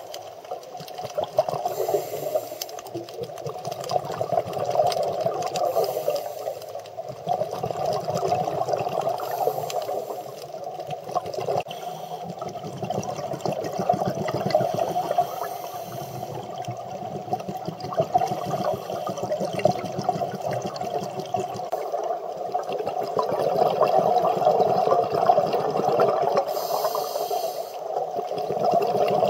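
Underwater sound picked up through a camera's housing during a scuba dive: a continuous crackling water rush that swells and eases every few seconds, with bursts of bubbling from the diver's exhaled air.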